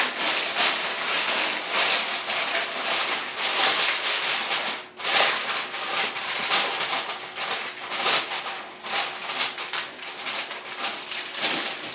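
Aluminium foil crinkling and crackling as it is pressed and crimped around the rim of a baking pan: a continuous run of small crackles with a short break about five seconds in.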